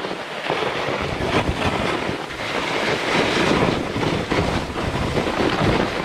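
Skis scraping over firm, refrozen spring snow, a continuous hard rasp with irregular louder scrapes. The snow has not softened after two weeks of freeze-thaw.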